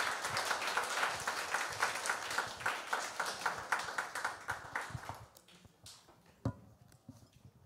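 Audience applauding at the close of a lecture, many hands clapping quickly, fading out about five seconds in. A single knock follows a little later.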